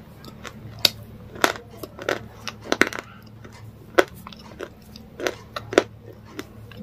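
Close-miked chewing and eating: irregular wet mouth smacks and crunchy bites, a few each second, over a steady low hum.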